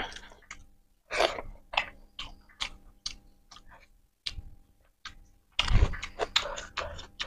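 Close-up eating by hand: wet chewing and lip smacks, broken by sharp noisy breaths through the mouth, the loudest about a second in and around six seconds. The breaths come from a mouth burning from king chilli (bhut jolokia).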